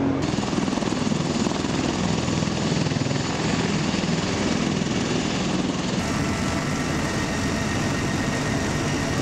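Large military transport helicopter running steadily, its rotors and turbines making a dense, continuous noise. About six seconds in, the sound shifts to the noise heard inside the helicopter's cabin in flight.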